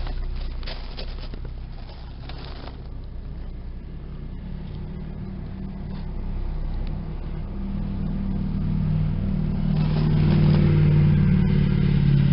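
A motor vehicle's engine running steadily, growing louder over the last few seconds.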